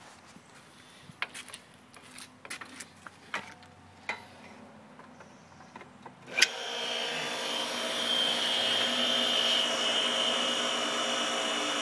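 Scattered clicks and knocks of handling as the power cord is plugged in. About six seconds in there is a sharp click, and the Goulds Irrigator GT07 pump's electric motor starts and runs steadily with a high whine while it primes, pulling air and water up from a bucket.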